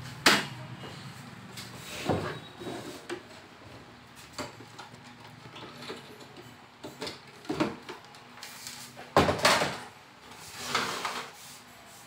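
Plastic knocks, clunks and scraping from the top cover and housing of an HP Ink Tank 5810 printer being worked loose and lifted off. The loudest knocks come just after the start and in a cluster about nine seconds in.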